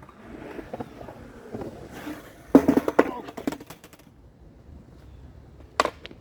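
Skateboard wheels rolling on concrete, then a loud clack of the board striking the ground with a rattle of smaller knocks as it clatters. The trick's pop was missed. One more sharp clack comes near the end.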